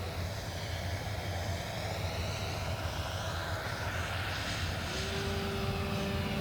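RC model aeroplane flying past, its motor whine rising and falling in pitch. A steady hum joins about five seconds in.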